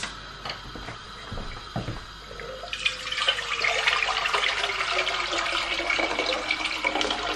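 Water poured from a stainless steel kettle into an aluminium saucepan: a steady splashing stream that starts about three seconds in, with a faint tone slowly sinking in pitch under it.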